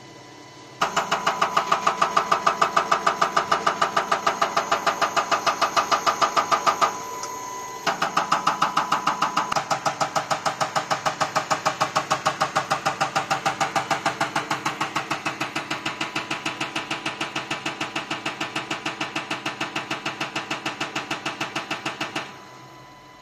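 Common rail diesel injector firing on a test bench: rapid, even clicking at a steady rate as the injector is pulsed during a delivery test. The clicking pauses briefly once and stops suddenly near the end.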